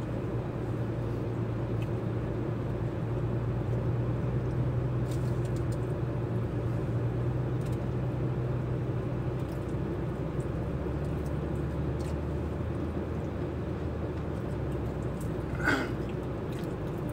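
Vehicle engine idling, heard from inside the cab: a steady low hum that drops in pitch about ten seconds in. A brief squeak near the end.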